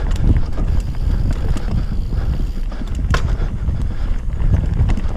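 Wind buffeting the microphone and tyres rumbling over a dirt forest trail as a mountain bike descends, with rattling clicks from the bike and a sharp knock about three seconds in.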